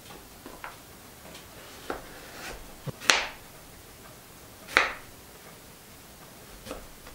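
Chef's knife cutting through firm root vegetables and knocking down onto a cutting board: a handful of separate, unevenly spaced cuts, the two loudest about three and five seconds in.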